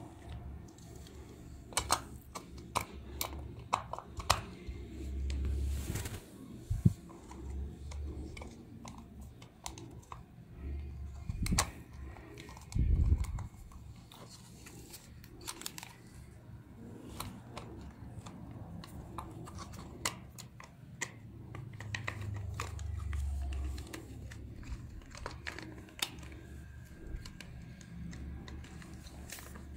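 Small hard plastic toy parts being handled, with many scattered light clicks and taps and a few short low rumbles.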